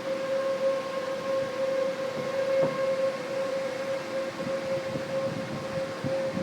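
Outdoor tornado warning siren sounding a steady, unwavering tone, with wind noise underneath.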